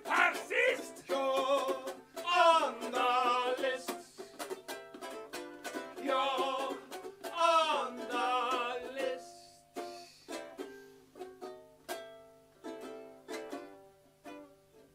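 Ukulele playing under a wordless mouth-trumpet solo: a voice imitating a trumpet with a wavering vibrato. About nine seconds in the voice stops and the ukulele goes on alone with single plucked notes.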